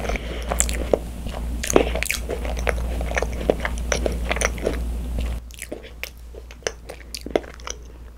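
Close-miked chewing of a thick-filled macaron: the crisp shell crunching and clicking between the teeth in many small irregular crackles. About five seconds in the chewing and background both get quieter.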